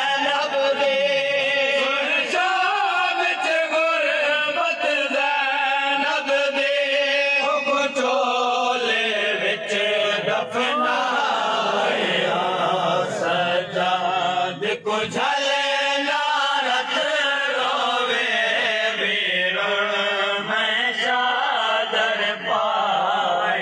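Men's voices chanting a noha, the Shia lament for Imam Hussain, sung unbroken in a steady melodic line.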